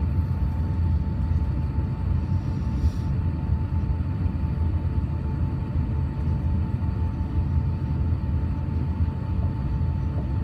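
Airbus A350-900 cabin noise: a steady low rumble of engines and airflow with a thin steady whine above it.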